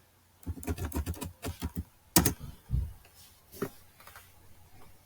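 Typing on a laptop keyboard: a quick run of keystrokes, one louder key press a little past two seconds in, then a few scattered taps.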